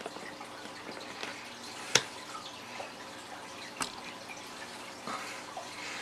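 Small clicks and taps of hands handling wires and crimp connectors in a plastic tackle box: one sharp click about two seconds in, a softer one near four seconds, over a faint steady hum.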